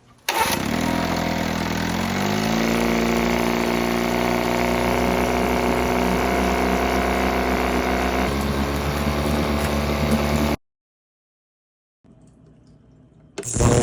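1971 Evinrude 6 hp two-stroke outboard running steadily, its pitch rising about two seconds in and then settling. It cuts off suddenly near the end, and a loud new sound starts just before the end.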